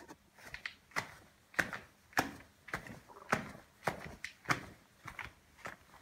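Shoes treading on a painting done on a sheet of cardboard: a series of short steps, a little under two a second.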